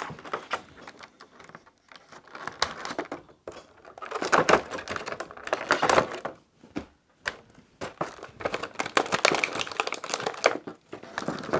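Thin clear plastic blister tray crinkling and crackling as it is handled, with irregular sharp clicks and scrapes from a knife cutting the rubber bands that hold a plastic toy in the tray.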